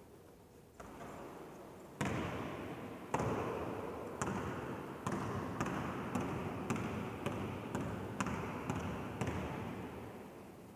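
A basketball knocking against the hardwood floor about a dozen times, loud at first and then at roughly two bounces a second, each knock ringing with a long echo in the large hall.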